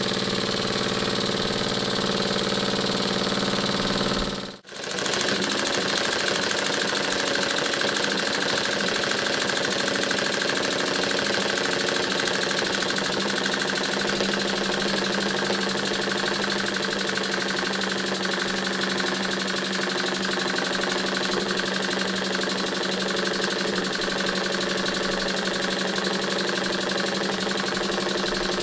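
Stuart Models single-cylinder oscillating engine running on compressed air, with a fast, even rhythm of exhaust puffs and clicking from the oscillating cylinder. The sound drops out briefly about four and a half seconds in, then carries on.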